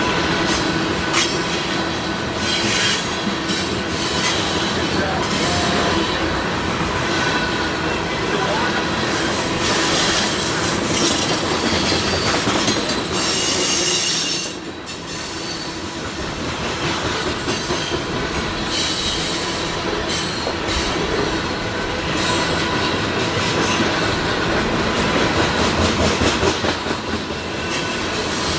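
Loaded oil tank cars of a freight train rolling past: steady wheel-on-rail noise with high-pitched wheel squeal coming and going, and a short drop in level near the middle.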